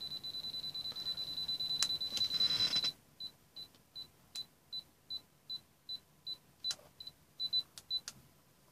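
GVDA GD118B multimeter's non-contact voltage detector beeping high-pitched: a rapid run of beeps for about three seconds, then slower separate beeps, two or three a second, that stop near the end, with a few light clicks in between. The detector is responding to the field around mains wiring, which the owner puts down to stray pickup.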